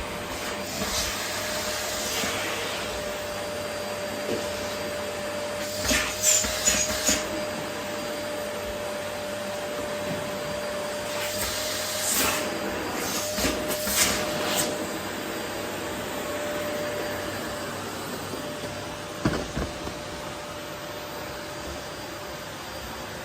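Vacuum cleaner running steadily with an even hum. Short bursts of rattling clatter come about six seconds in, again around twelve to fourteen seconds, and once more near the end.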